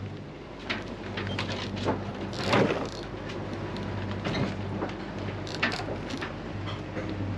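Wind and irregular knocks and rustles from the sails and rigging of a Leopard 45 sailing catamaran under way, over a steady low hum. A louder rush comes about two and a half seconds in.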